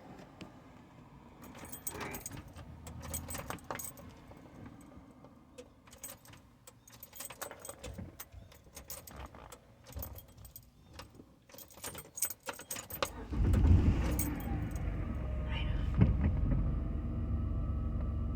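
Car keys jangling and clinking in bursts for several seconds, then about 13 seconds in the car's engine comes on and keeps running with a steady low rumble, its pitch settling slightly just after the start.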